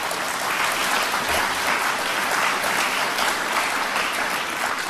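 Audience applauding: a steady round of clapping from a crowd that starts to ease off near the end.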